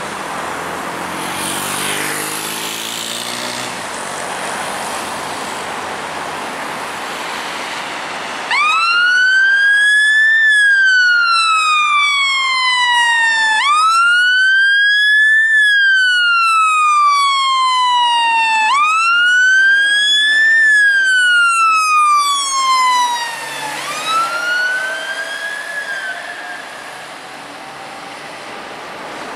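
Road traffic, then about eight seconds in a fire engine's wail siren cuts in: a slow rise and fall in pitch repeating about every five seconds, three full cycles, the fourth fading as the truck drives away.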